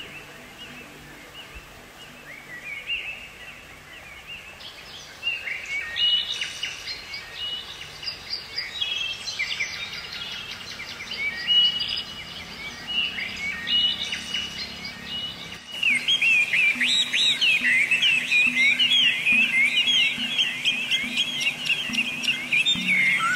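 Many small songbirds chirping and twittering, a dense overlapping chorus of short quick notes. About two-thirds of the way in it switches abruptly to a louder, busier stretch of birdsong.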